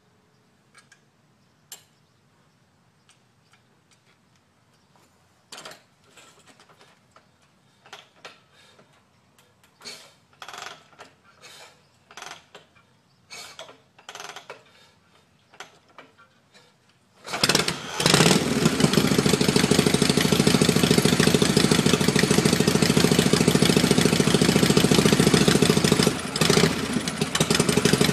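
Harley-Davidson Shovelhead V-twin with magneto ignition being cranked over repeatedly, giving a string of short irregular bursts without catching: the bike is hard to start. About two-thirds of the way in it fires and runs loudly and steadily, dipping briefly once near the end.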